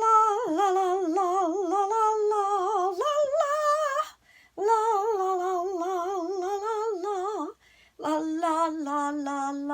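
A woman humming a wordless tune with a wide, wavering vibrato, in three long held phrases with short breaths between them, the last phrase sung lower and steadier.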